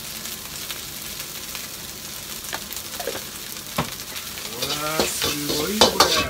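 Fried rice being stir-fried in a hot wok: steady sizzling and stirring, with a few sharp knocks against the wok in the middle.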